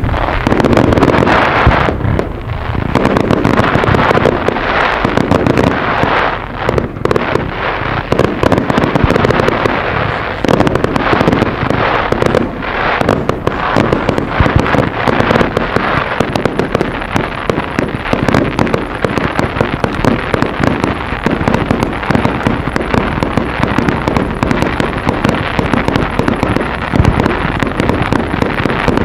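Fireworks display: a dense, continuous barrage of aerial shell launches and bursts, with rapid crackling reports and no pause.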